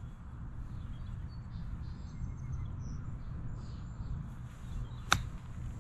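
One sharp click of a golf club striking the ball on a short chip shot, about five seconds in. Under it, a steady low wind rumble and faint bird chirps.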